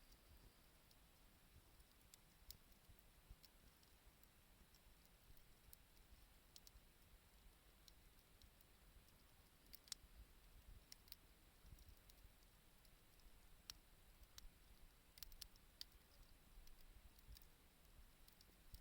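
Faint crackling of a wood bonfire: scattered sharp pops and ticks at irregular intervals over a low background rumble, with a slightly louder pop about ten seconds in and a small cluster a few seconds later.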